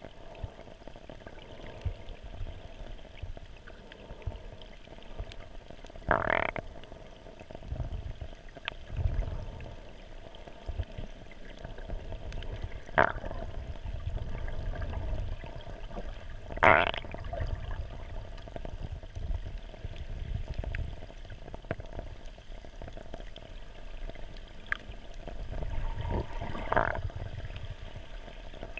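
Underwater water noise picked up through a camera housing during a snorkeling swim over shallow reef: a steady low, muffled rumble of moving water, broken by four short louder bursts a few seconds apart and a few faint clicks.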